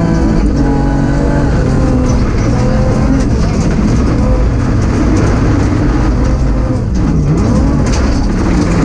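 BMW M3 rally car engine running hard at speed, its pitch climbing and falling through gear changes and throttle lifts, with a sharp drop and quick climb again about seven seconds in.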